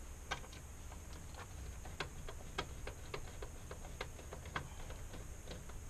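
Light, irregular metal clicks and ticks, about three or four a second, from hand work with a screwdriver and small screws on an LCD monitor's sheet-metal chassis.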